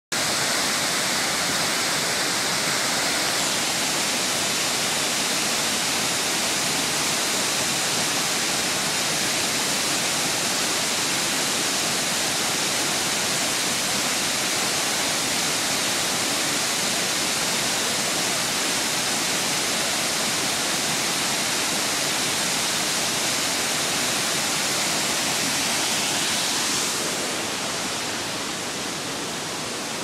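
Waterfall pouring down a rock face into a pool: a steady rushing hiss of falling water that softens slightly near the end.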